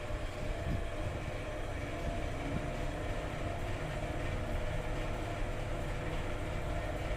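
Modernised 2000s Fujitec passenger lift travelling between floors, heard from inside the cab: a steady low rumble with a faint steady hum.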